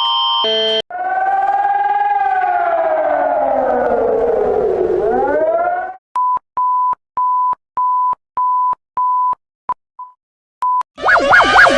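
Electronic emergency-alert signals in succession. A brief alternating chord gives way to a siren that slowly rises and then falls in pitch for about five seconds. Then come six evenly spaced beeps at one steady pitch and a few shorter blips, and a fast warbling alarm tone starts near the end.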